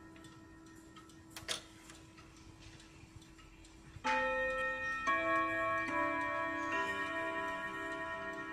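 Antique Junghans three-train wall clock ticking quietly, with one click about 1.5 seconds in, after its minute hand is turned by hand. About 4 seconds in, the chime starts playing its melody on the gong rods, each note ringing on into the next.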